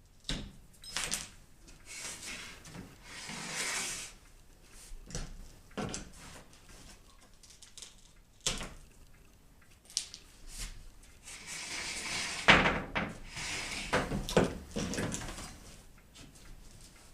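Nails being levered out through the back of a solid oak baseboard with an electrician's wire cutter: irregular clicks of the steel jaws biting the nails, with creaks and scrapes as each nail is rolled out of the wood. The sounds come thickest and loudest a little past the middle.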